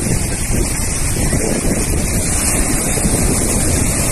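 Wind buffeting the microphone over the steady rush of sea waves.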